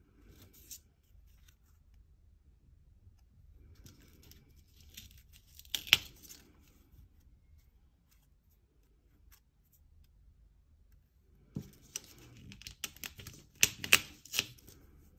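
Stiff die-cut paper feathers being picked up, handled and set down on a paper-covered table: papery rustling with light, sharp taps. There is one bout a few seconds in and a busier run of clicks near the end.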